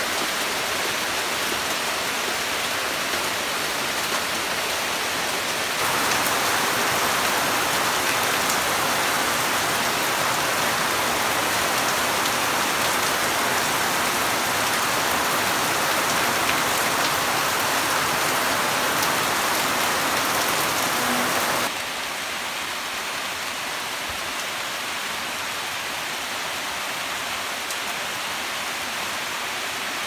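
Steady heavy rain falling on garden tree leaves and the ground. It steps up louder about six seconds in and drops back abruptly to a softer, duller level a little past twenty seconds.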